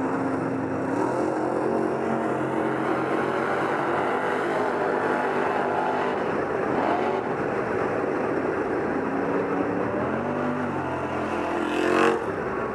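Sherp ATV's diesel engine running under load through deep mud and water, its pitch rising and falling with the throttle, with a brief louder burst near the end.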